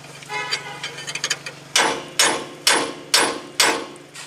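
Small sledgehammer striking a wrench on the screw of a C-press ball joint press: a few light metal clinks, then five sharp ringing blows about half a second apart. The blows are hammering the press screw around against a ball joint stuck fast in the cast-iron steering knuckle.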